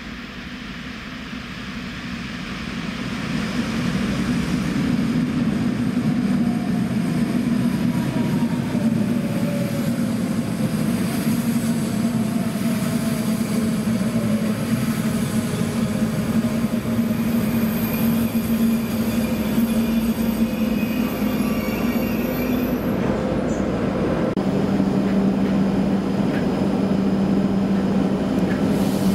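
Electric passenger train arriving at an underground platform, growing louder over the first few seconds. It slows with a whine that falls in pitch and some wheel squeal. Near the end it stands at the platform with a steady low hum, echoing in the station box.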